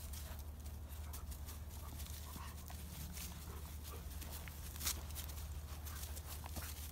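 Two dogs playing tug-of-war with a rope toy: paws scuffling and thudding on dry grass, with scattered soft clicks and one sharper knock about five seconds in, over a steady low rumble.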